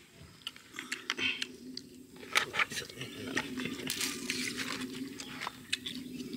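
Knife cutting and tearing raw monkey meat on a bed of palm fronds: irregular sharp crunches and crackles, with the fronds crinkling under the meat, the loudest cracks about two and a half and four seconds in.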